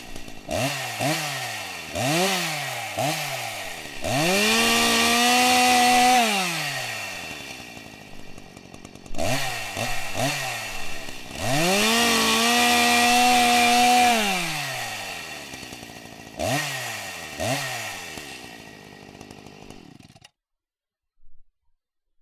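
Chainsaw being revved again and again: short throttle blips that sink slowly back down, and two longer revs held at high speed for about two seconds each. The engine sound cuts off abruptly near the end.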